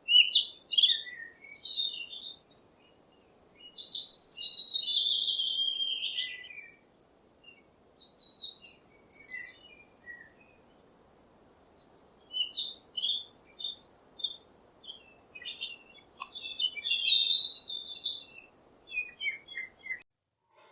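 Songbird singing a series of high chirping and warbling phrases with short pauses between them, including a longer falling phrase about three seconds in.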